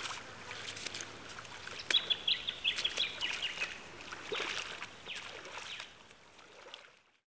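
Legs wading through shallow river water, with scattered splashes and sloshes, and a bird calling a quick run of short, high chirps about two seconds in. The sound fades out near the end.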